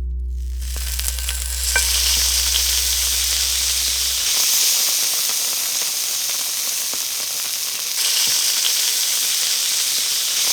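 Food frying in a pan: a steady sizzle that starts about half a second in, with a few small pops.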